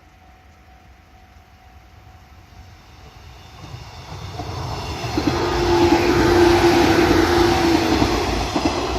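A train approaching and passing close by. It swells from faint to loud over the first six seconds into a rush of wheels on the rails, with a steady tone held through the loudest part and the sound just starting to fall away near the end.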